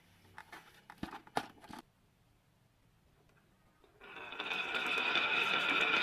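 A few light clicks and knocks of toy pieces being handled. About four seconds in, a small toy motor starts a steady whirring.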